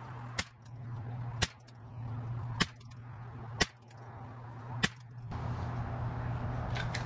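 Ruger 10/22 semi-automatic rifle firing five single .22LR shots, about one a second, each a sharp crack with a short echo. A steady low hum runs underneath and grows louder after the last shot.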